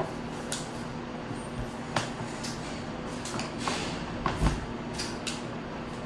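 Light clicks and taps of Crayola markers and paper being handled on a wooden table, with a soft thump about four and a half seconds in, over a faint steady hum.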